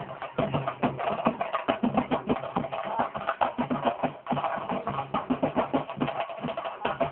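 A group of chenda drums beaten fast with sticks, a dense, unbroken rhythm of many strokes a second.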